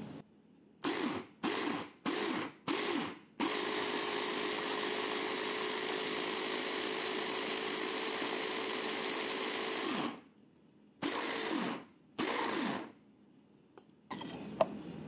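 Immersion hand blender motor pulsed in four short bursts, then run steadily for about seven seconds, then pulsed twice more, each burst spinning up and winding down. It is puréeing basil leaves with oil and salt into a liquid paste.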